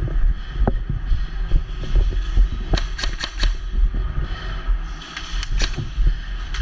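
Airsoft guns firing: a quick string of about four sharp shots around the middle, then two or three more near the end, over a steady low rumble.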